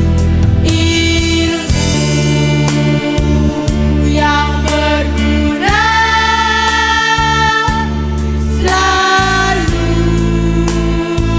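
Girls' school choir singing together, holding long notes over a steady instrumental backing.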